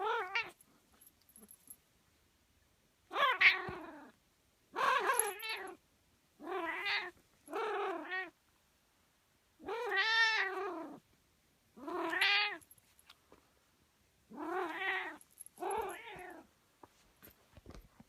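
Domestic cat making a string of drawn-out, unusual meows: about nine separate calls, each up to about a second long and rising then falling in pitch, with short pauses between.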